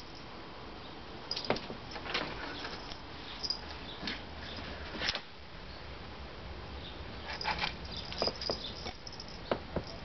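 Two house cats scuffling and pawing at a sliding screen door on a tile floor: scattered taps, knocks and scrapes of paws and claws, with a few short high chirps.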